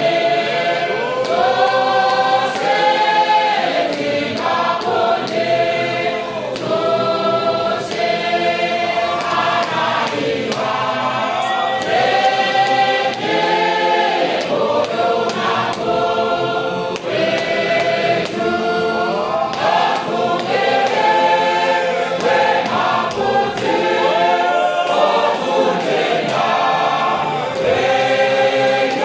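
A large congregation of men and women singing a hymn together as a choir, in long held notes that slide from one pitch to the next.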